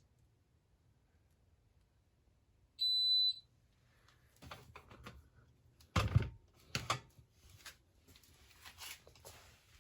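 A single short, high electronic beep about three seconds in, followed by irregular knocks and rustling noise, loudest in two thumps around six and seven seconds in.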